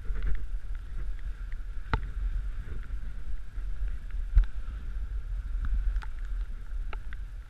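Dog sled gliding over packed snow: a steady rumble and hiss of the runners, with a few sharp knocks and clicks from the sled as it jolts along.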